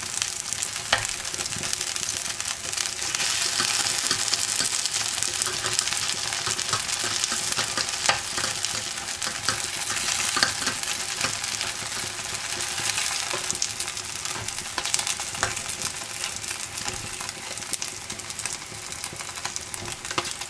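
Takoyaki balls sizzling steadily in oil in a takoyaki pan as they crisp up on the outside, with a few sharp clicks from the metal picks turning and prodding them against the pan.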